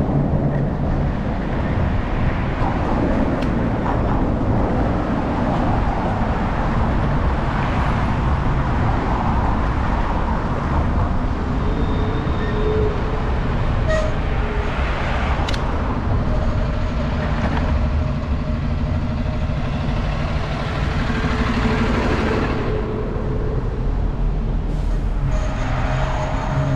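Road traffic heard from a bicycle in a bike lane: cars and trucks running alongside in slow, queued traffic, a steady wash of engine and tyre noise.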